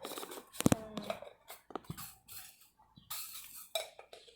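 Clicks, knocks and clinks of a small plastic container of clear slime beads (bits) being handled, with the sharpest knock a little under a second in.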